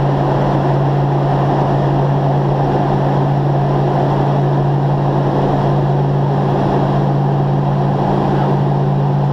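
Jet aircraft cabin noise in flight during a parabolic microgravity flight: a steady drone of engines and airflow with a constant low hum, unchanging throughout.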